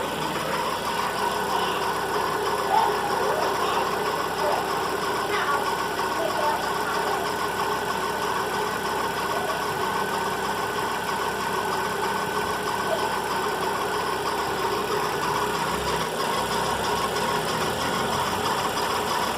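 Volkswagen Fox engine running, with a steady whine over the engine noise from a noisy accessory-belt pulley bearing.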